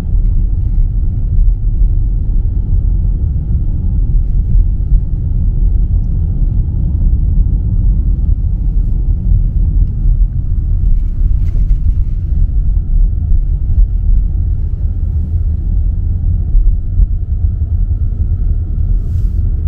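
Steady low rumble of a car driving on the road: tyre and engine noise.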